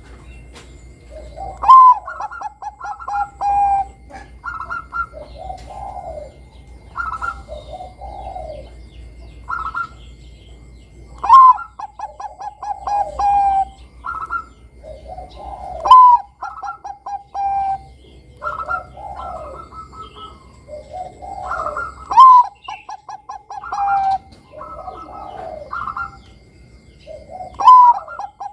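Zebra dove (Bangkok perkutut) singing its staccato cooing song five times. Each phrase opens with a loud sharp note, runs into a quick string of short coos and ends on a drawn-out note, with softer coos in between.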